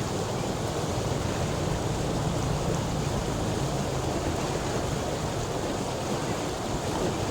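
Water flowing with a steady rushing sound, heavy in the low end.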